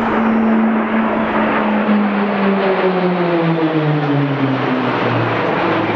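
A formation of six Pilatus PC-9/A turboprop trainers flying past, a loud propeller drone. Its pitch holds steady at first, then falls over the second half as the aircraft pass.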